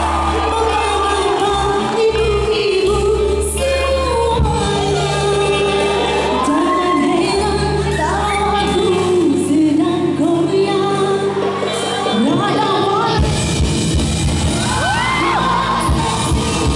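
Live band playing: a woman singing lead over electric guitars, bass guitar and drum kit. The bass drops out for a few seconds past the middle, then the full band comes back in near the end.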